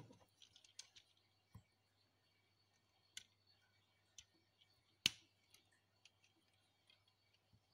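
Faint, scattered clicks and taps of plastic Lego bricks being handled and pressed onto a model, with one sharper click about five seconds in.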